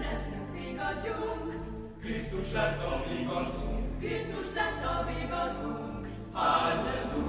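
Chamber choir singing a sacred choral work in several parts, with organ accompaniment holding low sustained notes beneath. The sound swells louder about six seconds in.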